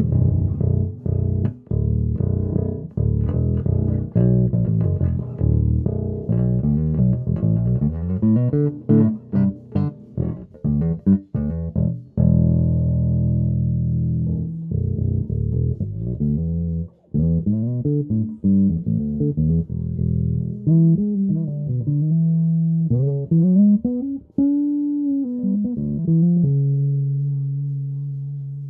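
Fujigen FGN NJB100MBAH five-string Jazz Bass-style electric bass (ash body, maple fingerboard) being played: fast notes with sharp, percussive attacks for about the first twelve seconds, then slower held notes with slides and a bent, wavering note, ending on a long note that slowly fades.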